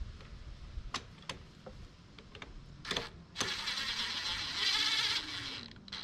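Cordless impact driver running for about two seconds, starting a little past halfway, as it drives a carburetor mounting screw back into a Briggs and Stratton mower engine. A few small clicks of handling come before it.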